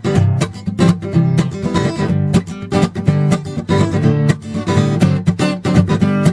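Background music: a strummed acoustic guitar with a steady rhythm, instrumental between sung verses.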